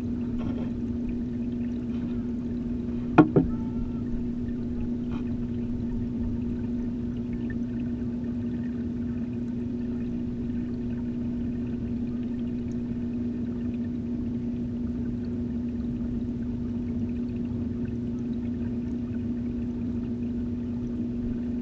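Aquarium filter pump's steady hum and water flow, heard underwater through the camera housing. Two sharp knocks close together about three seconds in.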